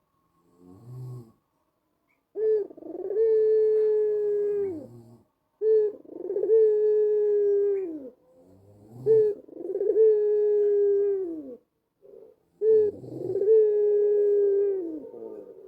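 White ringneck dove (Barbary dove) cooing its song four times. Each call is a short note followed by a long held coo of about two seconds that drops in pitch at the end. A faint short note comes about a second in.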